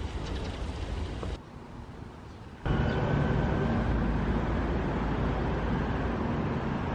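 Outdoor city ambience: a steady drone of distant traffic. It drops away for about a second at a cut, then returns louder and steady, with a low engine-like hum in it.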